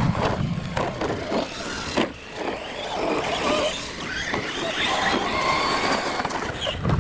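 Radio-controlled trophy trucks racing on dirt. Their motors whine, rising and falling in pitch with the throttle, over the rush of tyres on the track, with a few sharp knocks.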